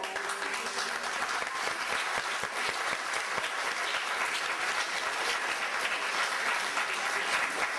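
Audience applauding: many people clapping together in a dense, steady clatter.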